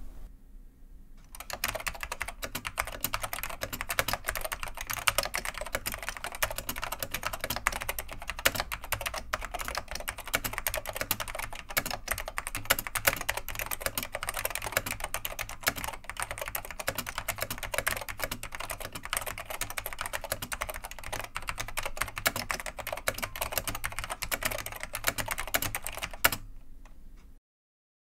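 Fast, continuous typing on an Ortek MCK-142Pro keyboard with Alps SKCM White switches whose click leaves have been removed, making them linear. It makes a dense stream of key clacks that starts about a second in and stops shortly before the end.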